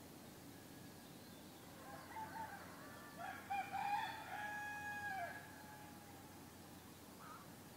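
A rooster crowing: one long crow from about two seconds in, peaking near the middle and ending after about three seconds, over steady low background noise.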